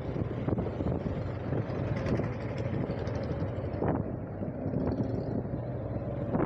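Vehicle engine running steadily while riding on the road, with wind noise on the microphone.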